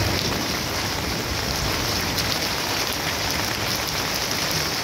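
Steady rain falling on garden plants and wet ground: an even hiss dotted with many small drop ticks.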